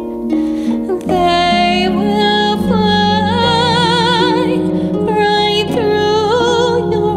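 A woman singing a lullaby in long held notes with wide vibrato over a soft instrumental accompaniment. The voice comes in about a second in, after a moment of accompaniment alone.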